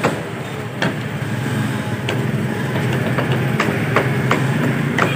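Heavy cleaver chopping through a fish into a wooden log chopping block: a series of sharp chops at uneven intervals, roughly one a second. A steady low hum runs underneath.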